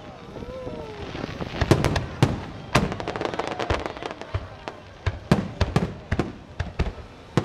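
Aerial fireworks shells bursting one after another as sharp booms at irregular spacing, several close together in the last couple of seconds, with a brief lull in the first second.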